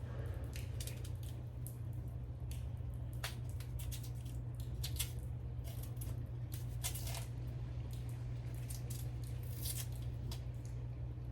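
Knife cleaning and cutting cassava: irregular short scrapes and clicks, a few of them sharper near the middle and toward the end, over a steady low hum.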